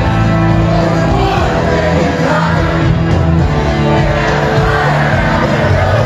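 Live rock band playing loud over a concert PA, heard from within the crowd, with singing and scattered shouts from the audience.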